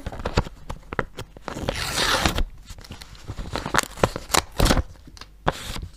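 Scissors snipping open a handmade paper surprise packet, then crinkly paper crackling and rustling as the packet is pulled open, with a longer stretch of crackling about two seconds in.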